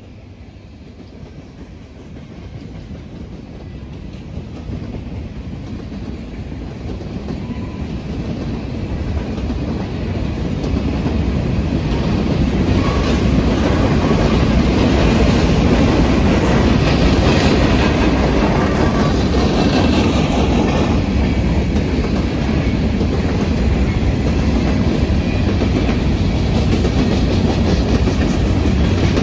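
Empty covered hopper cars of a freight train rolling past, their wheels clacking over the rail joints. The sound grows steadily louder over the first dozen seconds, then holds steady.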